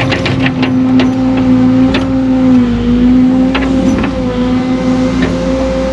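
Excavator engine and hydraulics running steadily, the whine dipping briefly under load partway through, with scattered sharp knocks of the digging bucket striking rock.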